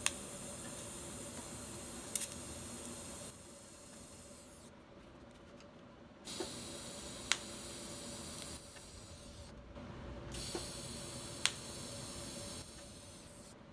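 TIG welding arc on a stainless steel bolt being welded to a round plate: three runs of steady arc hiss, each a few seconds long with a sharp crackle in it, broken by short quieter pauses.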